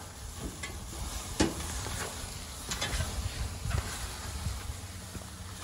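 Wood fire crackling and popping under a whole pig roasting on a spit, over a steady sizzle. The loudest pop comes about a second and a half in.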